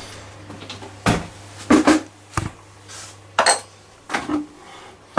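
A plastic mixing bucket with a wire handle knocking and clattering as it is carried and handled, a handful of separate knocks spread over a few seconds.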